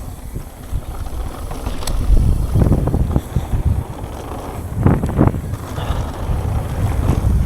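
Wind rushing over the microphone while a mountain bike rolls down a dirt trail, with a low tyre rumble. There are louder jolts over bumps at about two and five seconds in.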